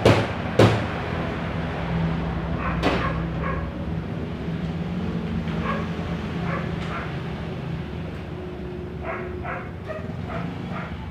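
Two sharp knocks, like hammer taps on metal, in the first second, then a steady low hum with a few short, faint sounds in the background.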